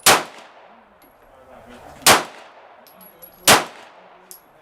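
Three 9mm pistol shots, the first right at the start, the next about two seconds later and the last about a second and a half after that.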